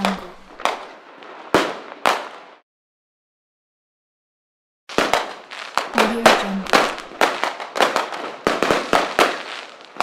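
Fireworks rocket crackling: a dense run of sharp, irregular pops and cracks. It cuts off suddenly about two and a half seconds in, and after about two seconds of dead silence the crackling starts again and runs on.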